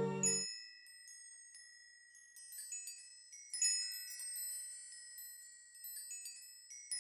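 Quiet background music of high tinkling chime tones, like wind chimes, struck in scattered clusters and left ringing. A low held chord cuts off just after the start.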